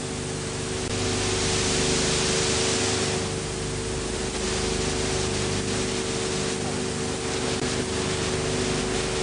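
Steady hiss with a steady low hum, the background noise of an old film's sound transfer; the hiss grows louder for a couple of seconds about a second in.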